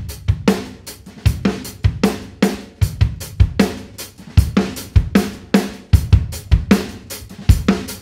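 A drum-kit loop playing back, with kick, snare, hi-hat and cymbals in a steady groove. The kick is augmented by a sampled Superior Drummer kick with extra bottom end from Transient Master, and the snare and upper kit carry added reverb.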